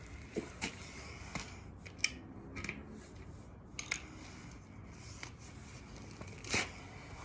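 A BMX tyre being worked off its wheel rim by hand: scattered clicks, snaps and short scrapes, the loudest about six and a half seconds in.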